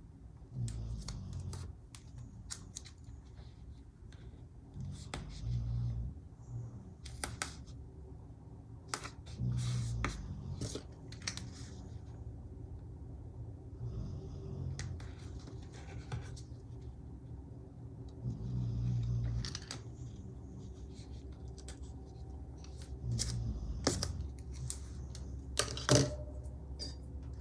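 Scattered snips, rustles and light taps of hands at a desk working with scissors, washi tape and sticker sheets, over a faint steady low hum.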